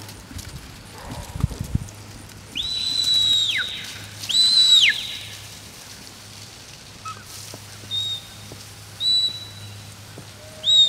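Sheepdog handler's whistled commands to a working border collie: two long high whistles, each ending in a falling glide, then three short high whistles near the end.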